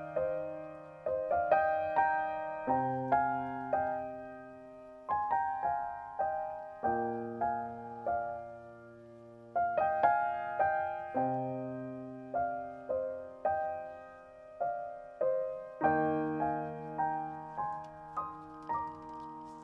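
Background piano music: a slow, gentle piece of struck notes and chords, each fading away after it is played, the harmony changing every couple of seconds.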